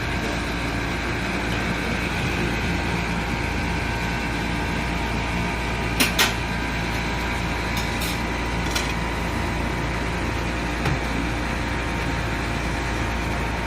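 Steady hum of running machinery, with a few short clicks about six, eight and eleven seconds in.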